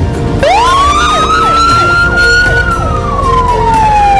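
Police siren wailing: its pitch rises quickly about half a second in, holds high, then slowly falls, with a rapid repeating yelp-like chirp alongside. Background music continues underneath.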